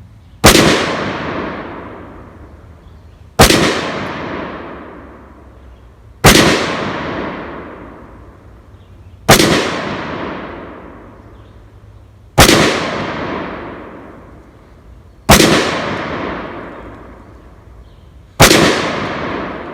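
Seven single shots from a PSA AR pistol in .223/5.56, fired slowly and evenly about three seconds apart. Each shot is sharp and loud and trails off over a couple of seconds.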